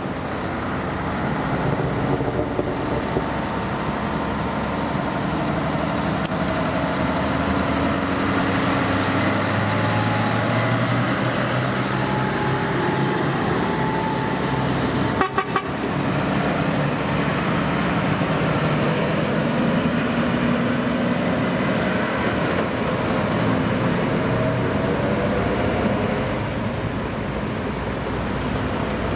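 Diesel engines of heavy-haul trucks moving a bridge section on a multi-axle trailer, pulling slowly through a roundabout. The drone is steady and its pitch shifts slowly as they pass, with a brief crackle about halfway through.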